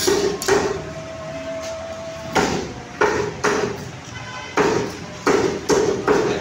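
Meat cleaver chopping chicken on a cutting block: about nine sharp, heavy chops at uneven intervals, coming in quick pairs.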